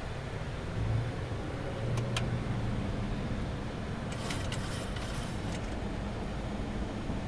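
Boeing 737-800 cockpit noise: steady airflow rush with a low rumble swelling as the landing gear extends on approach. A sharp click comes about two seconds in, and a few more clicks follow about four to five seconds in.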